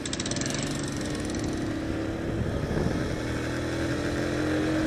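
A Bajaj CT100's 100cc single-cylinder four-stroke engine runs steadily while riding, with its pitch rising slightly near the end. A brief rapid ticking is heard in the first second.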